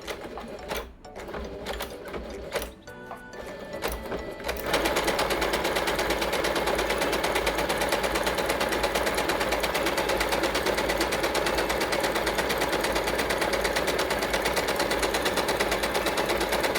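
Yamata digital sewing machine, after a few clicks, starting about four and a half seconds in and stitching a decorative design at steady high speed: a fast, even run of needle strokes.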